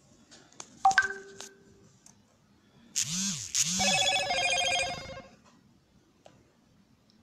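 Small knocks and rubs as a phone is handled and turned, then about three seconds in a short double whoosh followed by about two seconds of a pulsing electronic chime.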